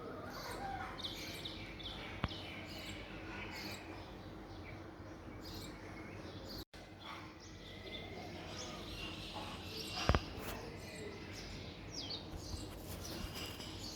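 Birds chirping in short, scattered calls over a steady low outdoor background, with a faint click about 2 seconds in and a sharper knock about 10 seconds in.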